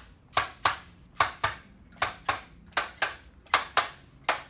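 Sharp claps from hands striking, coming in quick pairs about once a second in an even rhythm.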